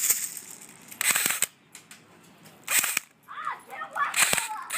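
Airsoft gun firing four short full-auto bursts, each a rapid string of sharp clicks, about a second and a half apart. A brief voice sound comes between the last two bursts.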